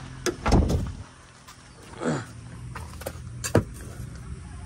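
Handling noises from a loose steel aftermarket exhaust pipe being carried and set down: a few sharp knocks and clicks, the loudest about half a second in, and a short falling squeal about two seconds in.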